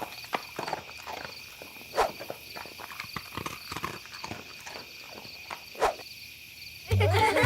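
A run of light, uneven clicks and knocks, with a few louder knocks among them, stopping about a second before the end; music starts up near the end.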